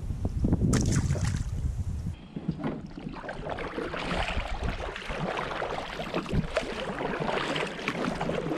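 Double-bladed kayak paddle dipping and pulling through the water, splashing and dripping with each stroke. For the first two seconds wind buffets the microphone, with a brief rustle.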